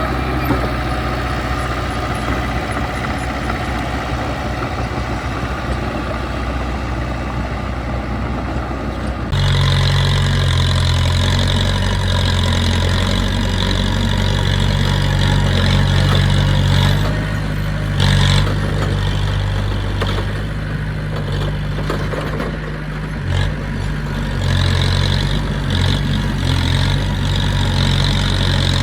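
Diesel engine of heavy earthmoving equipment running steadily. About a third of the way in the sound changes suddenly to a louder, deeper engine note with a hiss on top, and a few short knocks follow later.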